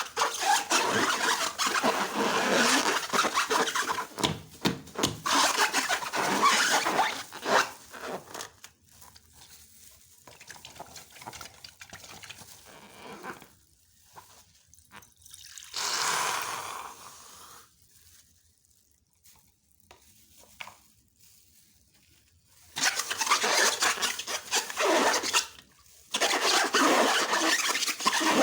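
Slime being worked by hand, squished and stirred, giving a dense run of wet clicks and squelches. It goes quiet for a long stretch in the middle and picks up again near the end.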